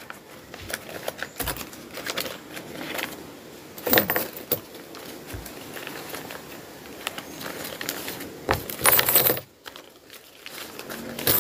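Philippine peso coins clinking and paper banknotes rustling as a pile of savings is counted by hand, loudest about four seconds in and again near nine seconds.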